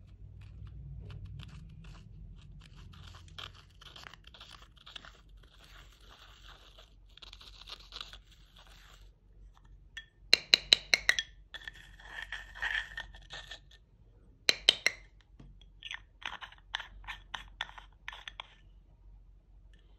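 Pressed pink eyeshadow scraped and crumbled out of its pot with a plastic tool: a dry, gritty crunching and scratching. Several sharp clicks come in a cluster about ten seconds in and once more near fifteen seconds, followed by a run of quick ticks.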